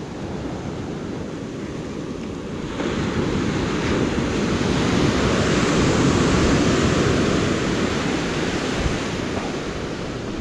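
Surf breaking and washing up a sand beach, swelling louder about three seconds in and easing off near the end.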